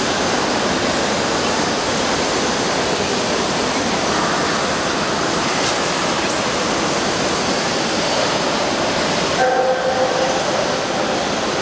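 Steady, loud din of a large crowded exhibition hall: many voices and movements blended into an even roar, with no single voice standing out. A faint held tone shows briefly near the end.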